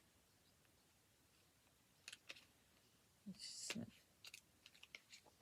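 Mostly near silence, broken by a few faint clicks from small items being handled, about two seconds in and again near the end, and one short louder sound with a hiss about three and a half seconds in.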